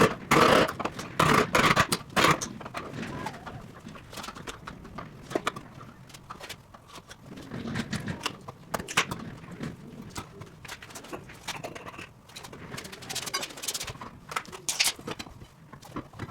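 A run of knocks and clatter from hand work, with several loud strikes in the first two seconds and lighter scattered clicks and knocks after.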